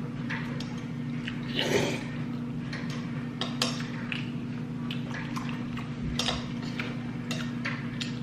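Irregular light clicks and clinks of utensils against dishes, with small wet sounds of saucy food, over a steady low hum.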